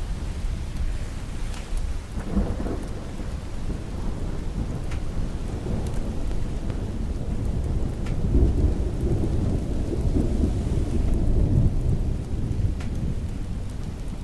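Steady rain with rolling thunder rumbling deep under it, swelling about two seconds in and again, louder, from about eight to twelve seconds in.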